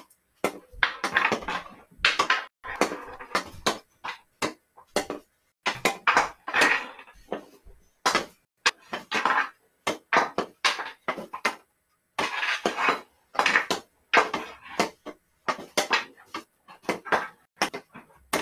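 Hockey stick blade stickhandling a ball across carpet: a rapid, irregular run of knocks and taps broken by short brushing swishes as the blade drags back and forth.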